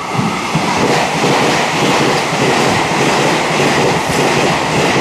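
Taiwan Railways Puyuma (TEMU2000) tilting express EMU running through a station at speed without stopping: a loud rush of wheel and rail noise that starts suddenly as the train reaches the microphone, then holds steady.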